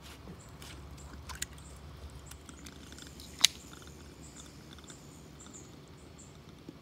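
Small clicks and light handling noise from hands working the plastic parts of an opened Irritrol 2400 sprinkler valve, with one sharp click about three and a half seconds in, over a low outdoor background.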